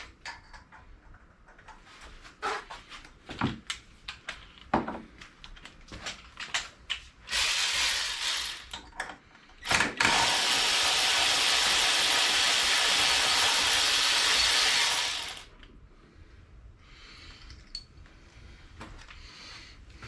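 Metal clicks and knocks of tools and small engine parts being handled on a Briggs & Stratton mower engine. About halfway through comes a short rushing noise, then a loud steady hiss that lasts about five seconds and cuts off suddenly.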